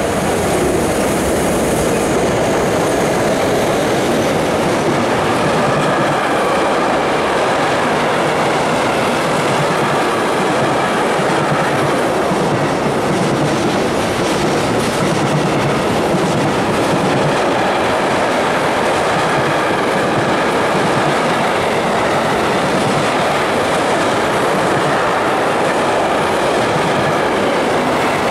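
Electric freight train passing close by at speed: two BLS Re 4/4 locomotives go by at the start, followed by a long string of intermodal wagons carrying containers and semi-trailers. The wheels roll steadily and loudly over the rails, with a brighter hiss in the first couple of seconds as the locomotives pass.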